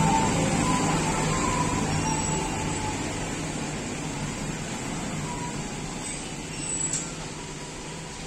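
Steady rumble of road vehicle noise that slowly fades.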